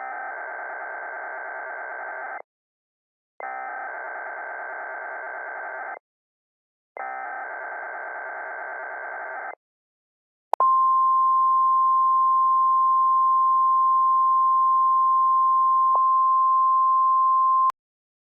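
Three Emergency Alert System SAME header data bursts, each a buzzy warbling screech about two and a half seconds long with a short pause between them. About ten seconds in comes the steady single-pitch 1050 Hz NOAA Weather Radio warning alarm tone, louder than the bursts, held for about seven seconds before it cuts off abruptly. Together they announce the start of an emergency alert.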